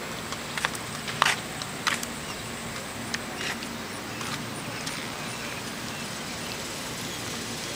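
Outdoor street ambience: a steady low hum and hiss, with a few light clicks or taps in the first half.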